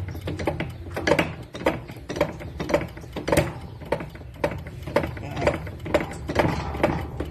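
Diesel injector from a 6M70 engine on a hand-pumped pop tester: the tester's lever is pumped in steady strokes, about two to three a second, each ending in a sharp click as the nozzle pops, over a steady low hum. The test checks whether the injector sprays properly or leaks back, since the engine is hard to start.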